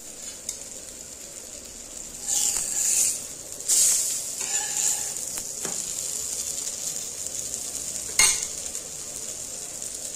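Masala-coated brinjal slices sizzling in oil on a hot tawa, a steady high hiss. It swells louder twice, about two and four seconds in. A single sharp click comes about eight seconds in.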